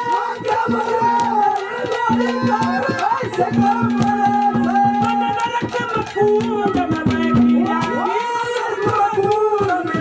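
Live Haryanvi ragni music: fast hand-drum strokes under a melody with a steady held drone note, and a man singing into a stage microphone.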